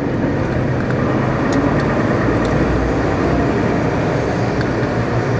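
Renault Premium truck's diesel engine running steadily as the truck drives, heard from inside the cab as an even, low drone.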